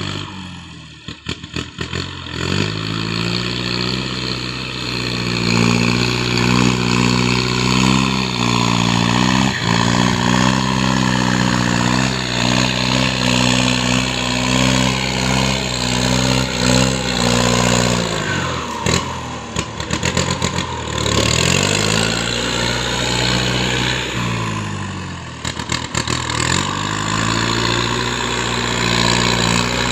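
An engine running hard at a steady high speed. It drops back to idle about two thirds of the way through, revs up again, eases off once more, then climbs back up near the end.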